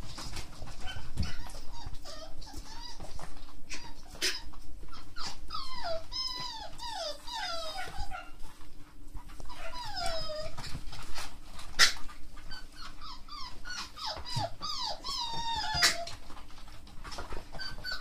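Beagle puppies whining and yelping in many short cries, most of them falling in pitch, crowded together in two busy stretches. A few sharp knocks cut through.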